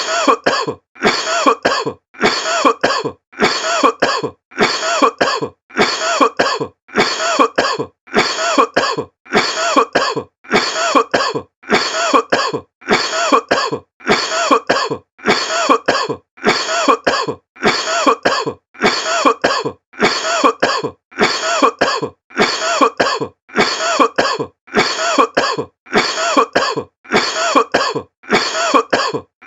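A person coughing over and over in short fits of two or three coughs. The fits come at an even pace of about one a second, each much like the last.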